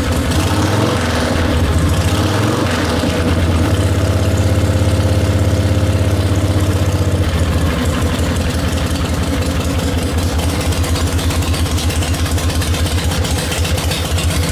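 Stroked 74-cubic-inch Harley-Davidson V-twin running through period aftermarket twin-stack exhaust pipes. It gives a couple of short throttle blips in the first few seconds and holds a faster idle, then drops about halfway through to a slower, evenly pulsing idle.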